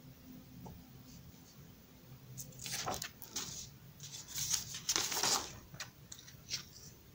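Large paper chart sheets rustling as one is taken down from a board and another is put up in its place, in several irregular bursts over about four seconds starting a couple of seconds in.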